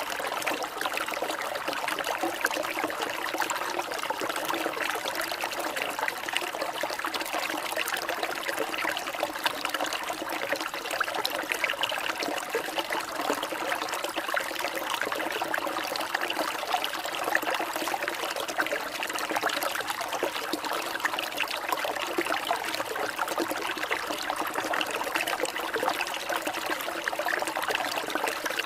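Water trickling and flowing steadily, an even continuous rush with no breaks, like a small stream.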